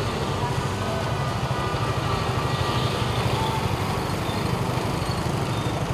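Small motor-scooter engines running steadily as several scooters ride past one after another.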